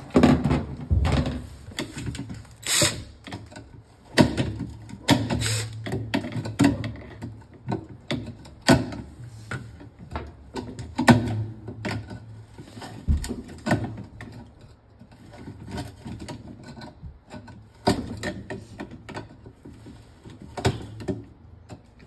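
Cordless drill driver working a socket on the rusted agitator bolt of a top-load washing machine. It runs in short stretches, among irregular knocks and clicks of the bit and tools against the plastic agitator.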